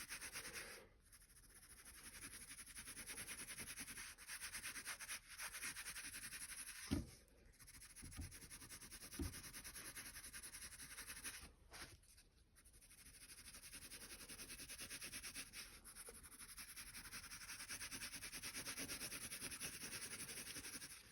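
Faint, scratchy rubbing on paper in several long stretches with short pauses, with a few soft low knocks around the middle.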